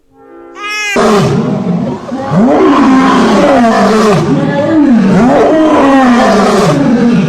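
A big cat roaring: a loud roar starts about a second in and runs into a series of shorter calls that rise and fall in pitch, about one every 0.7 seconds.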